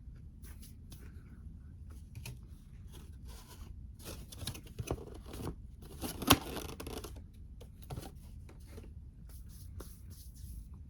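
Close-up tearing and scraping noises, coming in short bursts and busiest in the middle, with one sharp loud tap about six seconds in.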